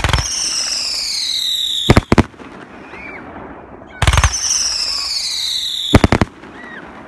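Fireworks shells going up one after another, each with a whistle that falls in pitch over about two seconds and then bursts in a cluster of loud bangs. The first bursts about two seconds in; the second goes up about four seconds in and bursts near the six-second mark.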